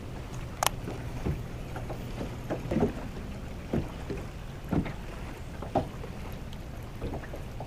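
Sounds aboard a fishing boat on the water: a steady low hum with short knocks about once a second, and one sharper click a little under a second in.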